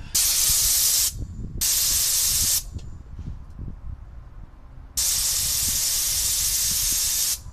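Compressed air hissing out of an air blow gun on the compressor's hose in three bursts: about a second, another second, then about two and a half seconds, each cut off sharply. Air is being let out while the output regulator is set to 125 PSI.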